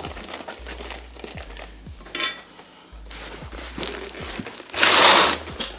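Packaging and machine parts being handled: scattered light clicks and knocks, and a loud rustle of packing material about five seconds in.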